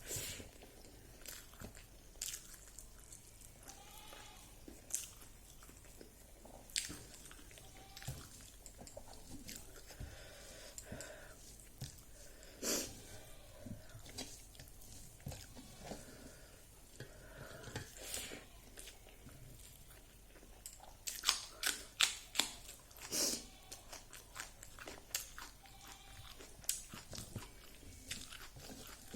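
A person chewing and biting crunchy fried dried pork with rice, close to the microphone, with scattered crisp crunches. A quick run of louder crunches comes about three quarters of the way through.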